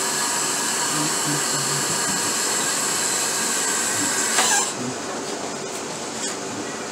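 A steady whirring electric motor with a high whine on top switches off about four and a half seconds in, its whine falling away as it spins down; a quieter steady hum remains.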